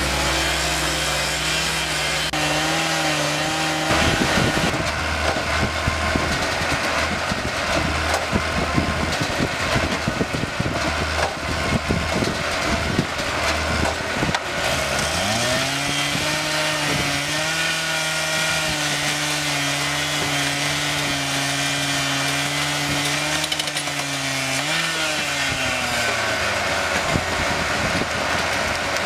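Petrol abrasive cut-off saw grinding through a steel rail. The middle stretch is a rough, noisy grinding with no clear engine note. In the second half the engine holds a steady high note for about ten seconds, then drops away.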